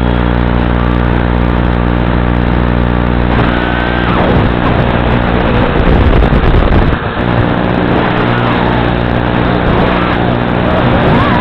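FPV racing quadcopter's brushless motors and propellers, driven by Flycolor 30 A ESCs, whining up and down in pitch as the throttle changes once the quad is flying, loudest about six seconds in. Under it runs a steady buzz.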